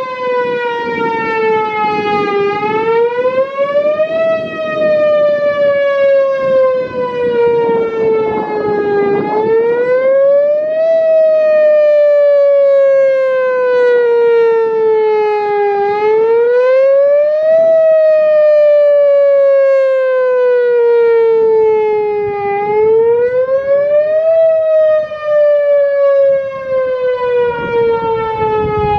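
Whelen Vortex electronic tornado siren sounding its wail signal: a loud tone that rises in pitch over about two seconds and falls more slowly over about five, repeating about every seven seconds.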